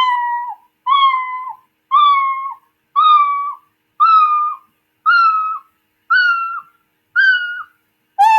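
Scratch's built-in "Meow" cat sound effect played about once a second. Each meow is a little higher in pitch than the last, as a pitch effect is raised by 10 on every repeat. Near the end, a meow at the original lower pitch sounds after the sound effects are cleared.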